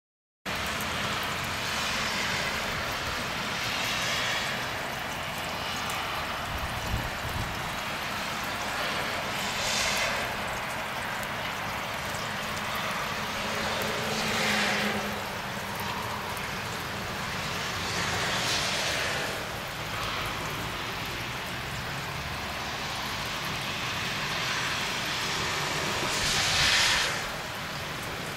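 Freezing rain and sleet falling steadily on wet pavement, a constant hiss. A louder hiss swells and fades about six times, the strongest near the end.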